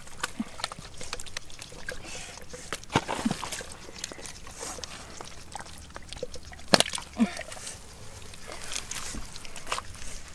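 Hands groping through wet mud and muddy water in a hole, squelching and sloshing, with many scattered sharp clicks and slaps.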